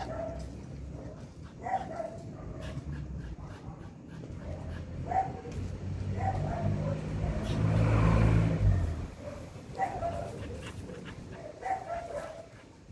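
Jack Russell terrier giving a few short, spaced barks. A passing vehicle swells up and fades away in the middle, loudest about eight seconds in.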